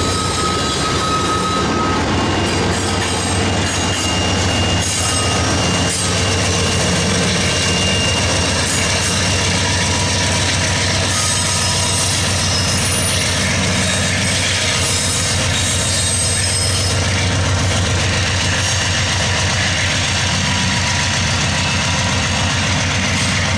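Loaded coal hoppers rolling past, their wheels squealing in thin high tones over a steady rumble and low drone. Then the train's rear distributed-power locomotive, a GE AC4400CW diesel-electric, passes under power.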